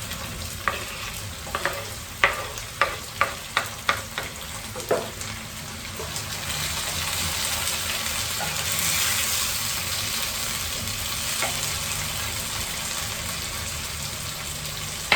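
Tomatoes frying in a pan with onions, sizzling as they are stirred. A quick run of sharp knocks against the pan comes in the first few seconds, then a steady sizzle that grows louder midway.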